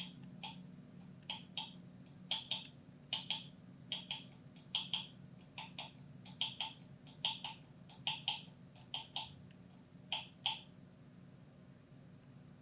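Comandante C60 Baracuda hand coffee grinder's grind-adjustment wheel being turned notch by notch, clicking through its detents to set a 24-click grind. About two dozen crisp clicks, mostly in quick pairs about once a second, stop near the end, over a low steady hum.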